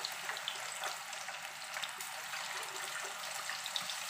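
Chicken pieces deep-frying in hot oil: a steady sizzling hiss, with a few faint clicks.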